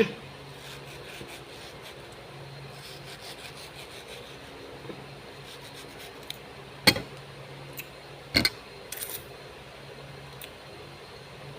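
Eating sounds at a noodle meal: faint scratchy rubbing and chewing, broken by a few sharp clinks of a utensil against a dish, the two loudest in the second half, over a steady low hum.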